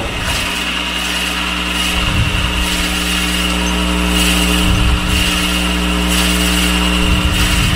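Wood lathe running while a 1¼-inch Forstner bit, held in the tailstock, bores a shallow recess into the spinning wooden acorn cap. Steady motor whine with the bit grinding through the wood, swelling with a deeper rumble three times as the bit is fed in.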